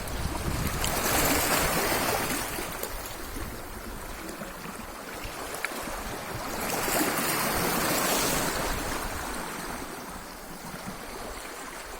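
Black Sea waves washing onto the shore: two surges of surf, about five seconds apart, each building and then fading back.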